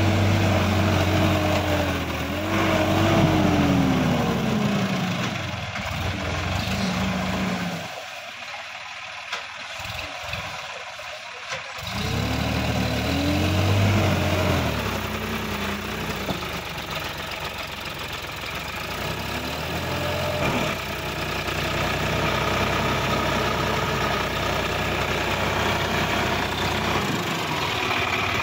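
Sonalika DI-50 RX tractor's diesel engine revving hard in two surges, its pitch climbing and falling, as the tractor drives up out of the pond through deep mud. It eases off in the middle and settles into a steady idle in the last few seconds.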